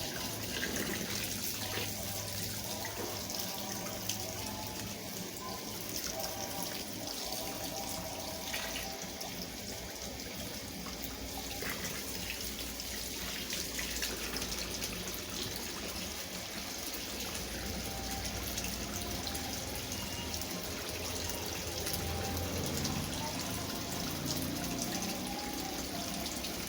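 Water rushing and splashing inside a Consul CWS 12 washing machine during its cycle, over a steady low hum from the machine.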